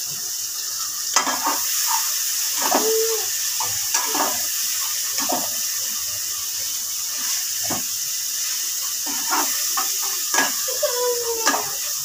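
Masala and chopped tomato frying in hot oil in a cooking pot, sizzling steadily, with a spoon scraping and knocking against the pan every second or so as it is stirred.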